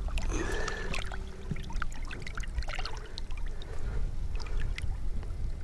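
Light splashing and trickling water as a smallmouth bass is held by its lip at the river's surface, its body and tail stirring the water in small irregular splashes.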